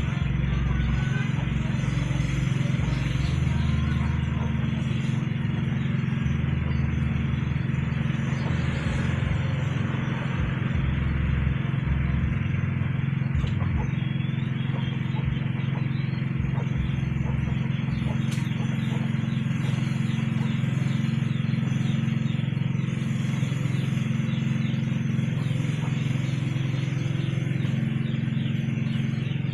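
A steady low mechanical hum with a constant hiss above it.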